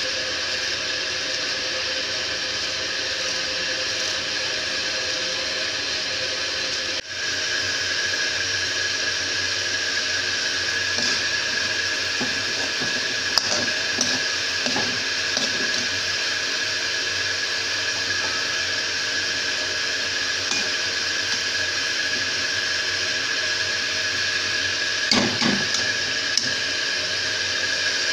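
Steady hiss of cauliflower frying in a metal karahi on a gas stove, with a few short scrapes of the spoon against the pan in the middle and near the end.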